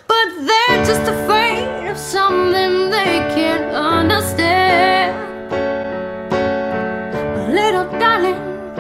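Music: a woman singing a wavering, ornamented melody over piano, with a low bass part coming in under a second in.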